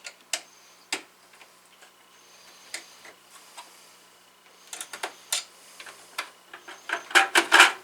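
Scattered clicks and light clatter of hands moving parts and cables about inside an open rack server chassis, with quicker runs of clattering about five seconds in and again near the end.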